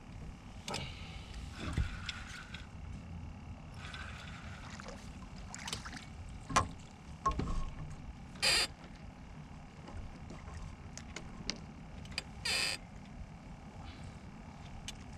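Handling noise aboard a small fishing boat: a steady low rumble with scattered knocks and clicks, and two short rushing bursts about four seconds apart.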